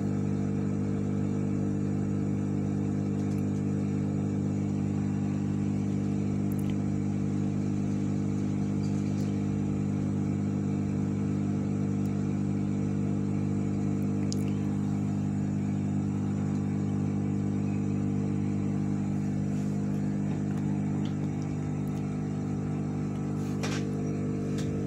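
Hot air rework station's blower running steadily with a hum, easing slightly about twenty seconds in, while the air heats the solder on a console's HDMI port. A few faint light clicks of tools on the board.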